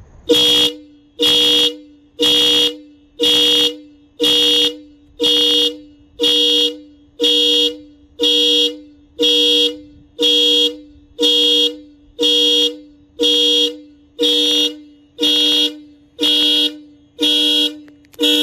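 HELLA Supertone twin high- and low-tone car horns sounding in the panic-alarm pattern: a loud two-note blast about once a second, over and over, measured at up to 108 dB in front of the car.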